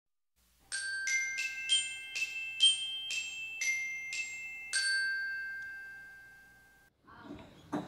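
A short chime jingle of struck, glockenspiel-like notes: about ten notes in a quick even run, the last one left ringing and fading out. A faint clatter starts just before the end.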